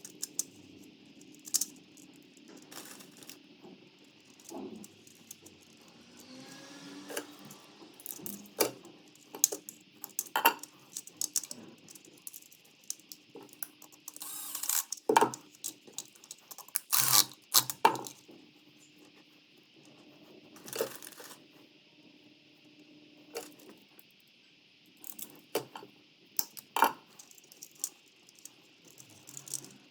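Irregular clicks, taps and rattles of small hard objects being handled, a few sharper knocks around the middle, over a steady faint hum.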